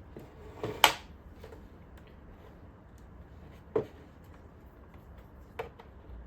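A few sharp clicks and taps of hard plastic and small tools being handled while a Roomba's plastic housing is taken apart. The loudest comes about a second in, with two fainter ones later.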